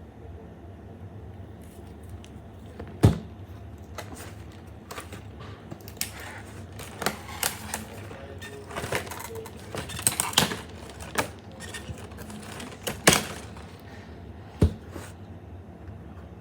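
Irregular clicks, knocks and crinkly rustling of a toy and its packaging being handled during unboxing, busiest in the middle, with two sharper knocks about three seconds in and near the end.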